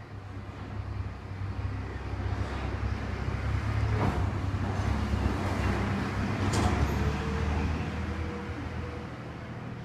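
A passing vehicle's low rumble, swelling over a few seconds and fading again, with two sharp clicks in the middle.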